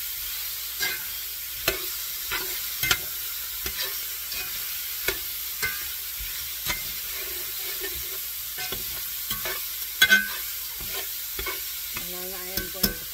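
Diced beef steak with peppers and onions sizzling in a pan as it is stirred, the utensil clacking irregularly against the pan, with a couple of louder knocks about ten seconds in. The burner has just been switched off, so the sizzle is from the pan's remaining heat.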